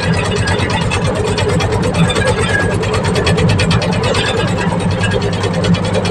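Compact excavator's diesel engine running steadily, with a fast even clatter.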